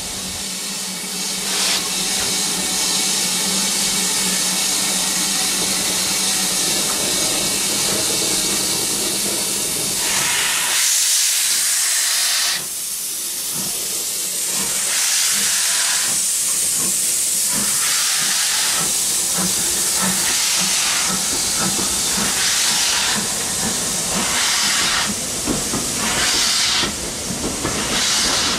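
BR Standard Class 4MT 2-6-4 tank engine No. 80072 starting a train: a steady hiss of escaping steam with a low hum, a brighter rush of steam about ten seconds in, then exhaust chuffs about once a second over the hiss of open cylinder drain cocks as it pulls away.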